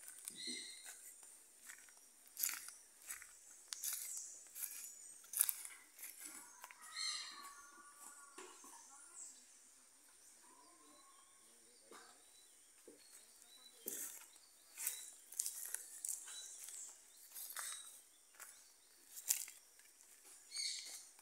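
Footsteps crunching on dry leaf litter and dirt, irregular steps about a second apart, over a faint steady high insect buzz and a few brief bird chirps.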